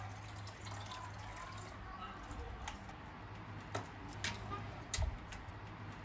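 Water poured from a plastic filter pitcher into a glass measuring jug of yogurt mixture. A few sharp clicks and knocks follow in the last couple of seconds.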